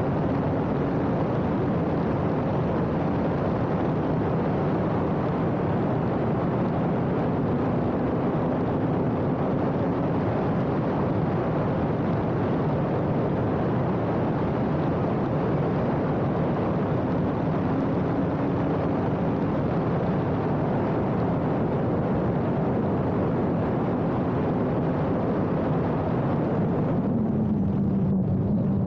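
Radical race car heard from on board at speed: a steady, loud rush of wind and road noise with the engine note faintly under it, shifting in pitch. Near the end the rushing noise drops away and the engine note dips, then climbs.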